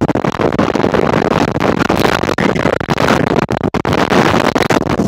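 Strong desert sandstorm wind buffeting the microphone: a loud, rough rushing rumble with a few brief dropouts.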